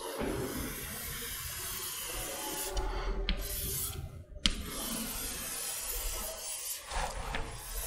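Chalk rubbing against a blackboard as a drawing is shaded in with coloured chalk: a steady scratchy scraping broken by a few short pauses, with a sharp tap of chalk on the board about four and a half seconds in.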